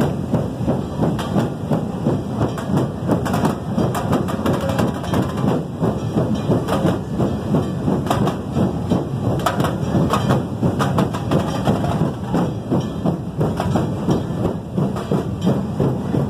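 Street drum band playing a loud, fast, driving beat, many drums struck together in a steady repeating rhythm without a break.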